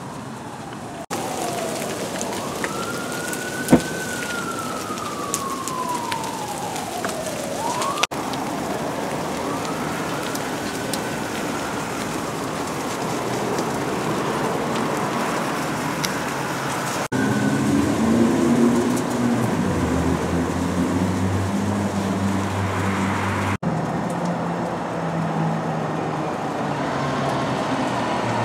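Fire engine siren wailing in a long rising and falling glide, then fainter, over a steady hiss from the burning dumpster fire, with one sharp pop about four seconds in. In the second half a deep engine drone takes over.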